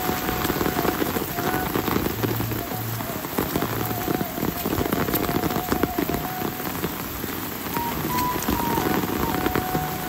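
Steady rain falling, a dense hiss of many small drops striking surfaces. A thin faint steady tone sounds underneath.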